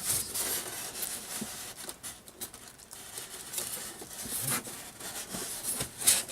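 Cardboard monitor box and its packaging being handled: rustling and scraping with scattered knocks, and one sharp knock near the end, the loudest sound.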